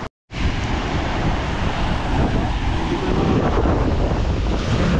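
Wind buffeting the microphone over the wash of sea waves on the shore, after a brief dropout just after the start.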